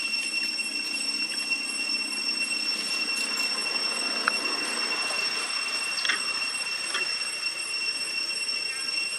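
Cicadas droning steadily at a high pitch, with a few short, sharp chirps over the drone in the second half.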